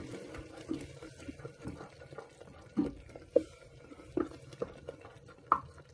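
Wooden spatula stirring thick tomato-spice masala paste in an aluminium pressure cooker: soft, wet stirring with a handful of short scrapes and taps against the pot, a few of them sharper from about the middle on.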